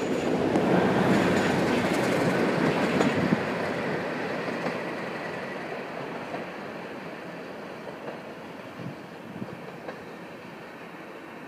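Train of 3CIG coaches with a Class 37 diesel locomotive on the rear passing beneath: wheels running on the rails with a few clicks, and the locomotive's engine running. It is loudest in the first few seconds, then fades steadily as the train draws away.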